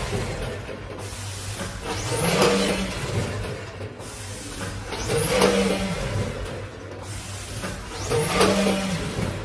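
Popcorn pouch-packing machinery with a multihead weigher, running over a steady hum. About every three seconds a motor speeds up and slows down, rising and falling in pitch with a swell of noise, which marks each machine cycle; this happens three times.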